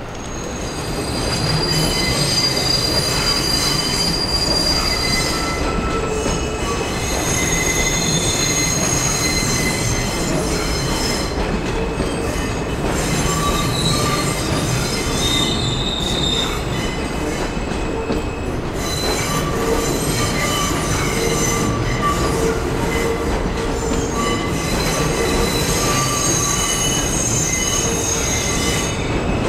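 Steel wheels of a Kawasaki R211A subway train squealing on the sharp curves of the yard track, several high squeal tones wavering and overlapping over the steady rumble of the rolling cars. The sound swells about a second in and stays loud.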